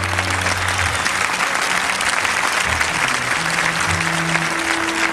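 Audience applauding loudly at the end of a song, the band's last held chord dying away about a second in. A few faint instrument notes sound under the clapping.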